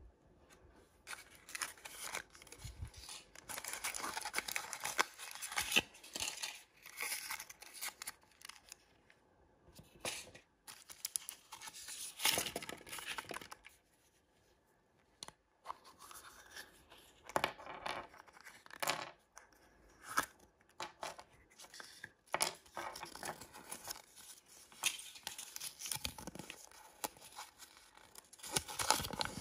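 Packaging from surprise eggs and blind bags torn open and crinkled by hand, in irregular bursts of tearing and rustling. There is a pause of about two seconds just past the middle.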